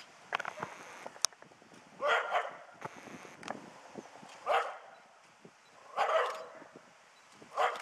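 Small terrier barking at a stuffed bear during a bear-dog test: about five sharp barks, one pair and then single barks, spaced a second or two apart.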